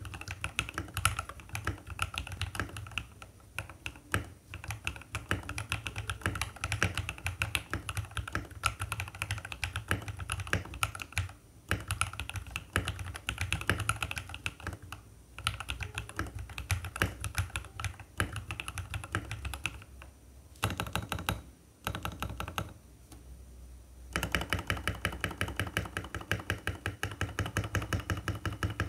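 Typing on a mechanical keyboard fitted with Akko ASA-profile PBT-style keycaps: fast, continuous keystroke clacks. There is a brief pause about 11 seconds in and a sparser lull around 20 to 24 seconds, after which the strokes come very evenly.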